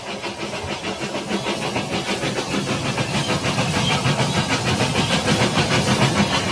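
Battery-powered toy train running along plastic track: a rapid, even clatter of its motor, gears and wheels, about five beats a second, growing louder as it comes close and passes.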